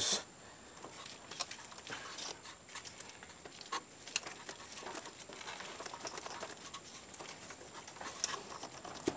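Faint scattered clicks and rustling as a rubber coolant hose is worked by hand onto the engine's water outlet neck.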